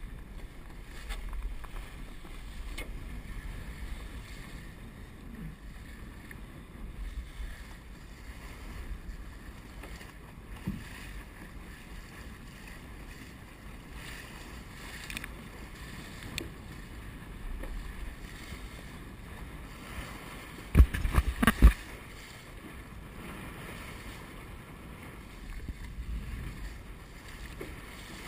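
Wind buffeting the microphone over the rush and splash of water along the hull of a Star keelboat under sail. About three-quarters of the way through comes a short cluster of loud knocks.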